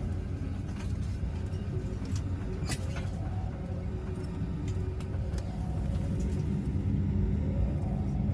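Low, steady rumble with a few sharp clicks about two to three seconds in, slowly growing louder toward the end.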